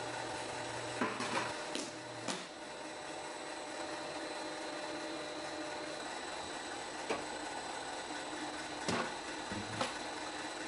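Steady machinery hum in a dairy milk room, with a few light knocks and clicks as milk containers are handled. Near the end a small refrigerator door is opened.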